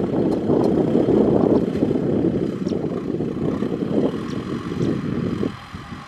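Kubota M6040SU tractor's diesel engine running under load as it pulls a disc plough through dry soil. It is a steady, rough engine sound that dips briefly near the end.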